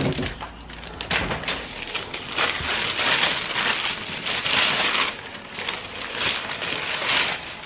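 Gift packaging being crinkled and torn open by hand, a crackling rustle that comes in uneven swells with small clicks.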